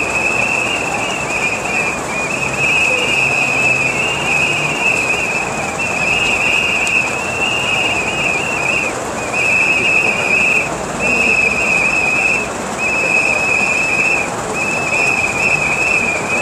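Pea whistles blown in long trilling blasts, almost without a break at first and then in separate blasts of about a second with short gaps, over the steady hubbub of a large crowd.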